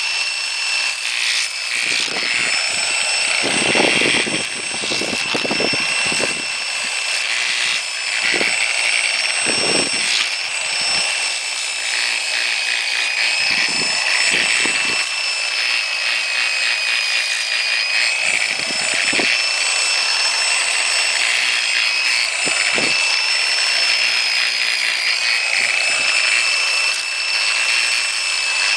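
A power tool runs with a steady high-pitched whine while it mills and sands a Spyder paintball marker body. Scraping, grinding bursts come and go as the tool bites into the part, most often in the first third.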